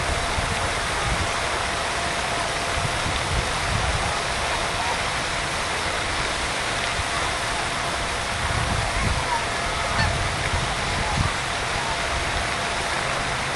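Faint, scattered honking calls of geese over a steady outdoor hiss with low rumbling.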